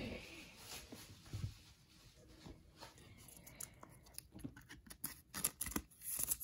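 Trading cards being slid and pushed into a clear plastic card holder, the card edges and plastic rustling and scraping. A quick run of small clicks and scrapes comes in the second half, as the cards are forced into the tightly packed holder.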